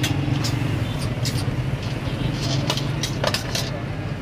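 Steel scraper scraping and knocking on a steel cold plate in short strokes as rolled ice cream is pushed up into rolls, over a steady low hum.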